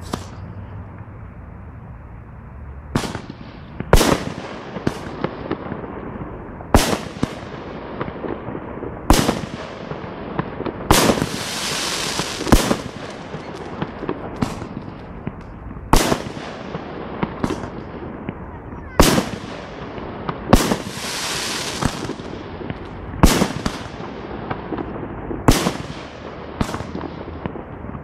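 Aerial fireworks display: shells bursting with sharp, echoing bangs every second or two after a quieter first few seconds. Twice a burst is followed by a hiss lasting a couple of seconds.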